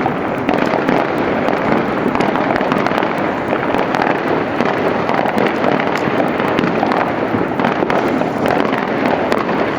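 Fireworks display heard from a distance: a dense, steady crackle of many small bursts running together without a break.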